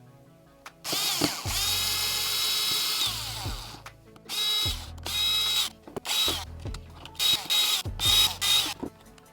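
Cordless drill/driver motor running: a whine that rises as it spins up, holds for about two seconds, then runs in a string of short bursts, as screws are driven out of a Ryobi 18V battery pack's case.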